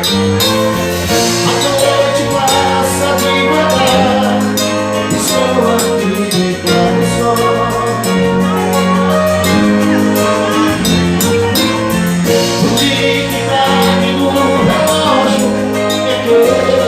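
Live band music with a steady beat and held bass notes that change every second or two, loud throughout.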